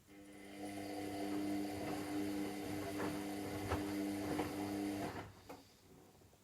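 Washing machine motor running for about five seconds with a steady hum and light knocks, then stopping. A click comes just before it starts and another just after it stops, typical of the machine turning the drum in short bursts during the cycle.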